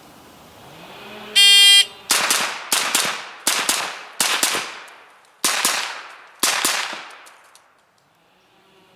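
An electronic shot timer beeps once, then a 9mm Colt AR-15 carbine fires a fast string of shots, mostly in quick pairs, with two more spaced shots at the end. Each shot trails off in an echo.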